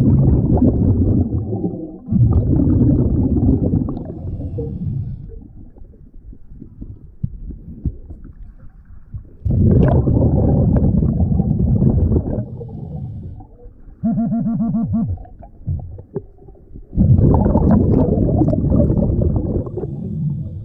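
A scuba diver breathing through a regulator, heard underwater: long rushes of exhaled bubbles come in four bursts, with quieter gaps for the breaths in. A short rapid buzzing tone sounds about two thirds of the way through.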